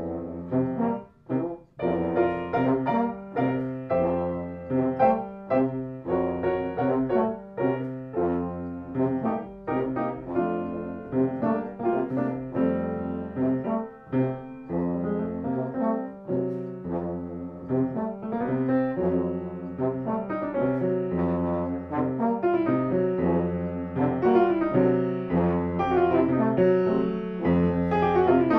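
French horn and grand piano improvising a duet: the horn plays held notes over struck piano chords and runs, with a short pause about a second in.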